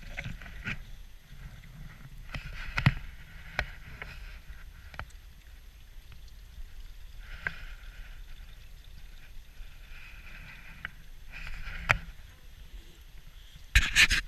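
Irregular knocks and rustles of someone walking on a winter forest trail, over a steady low rumble.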